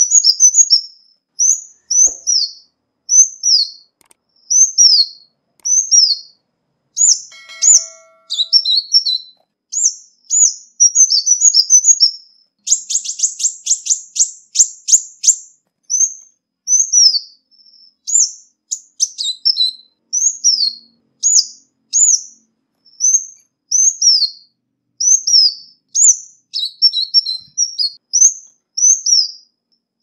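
Ruby-cheeked sunbird calling: a steady series of high, thin, downslurred notes, a little over one a second, broken by a few quick twittering clusters. About halfway through, a fast dry trill lasts about three seconds.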